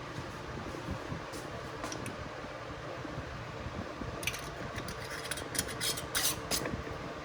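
Glass pickling jar and its lid being handled: a quick run of sharp clicks and clinks about four seconds in, over a steady fan-like hum.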